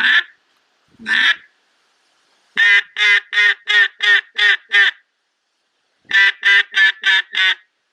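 Haydel's BC-10 Big Barrel cut-down mallard duck call blown by mouth, making loud hen-mallard quacks. Two single quacks come first, then a run of seven quick quacks, and after a short pause a run of six.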